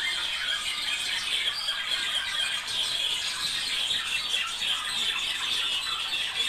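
A pair of budgerigars chattering and warbling without a break: a dense run of high chirps, squawks and scratchy notes.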